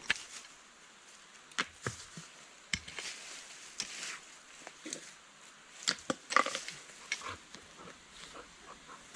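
Irregular sharp knocks and taps of a wooden-handled hand tool striking earth and stone, loudest just after the middle, mixed with a few short low vocal sounds from an Akita dog.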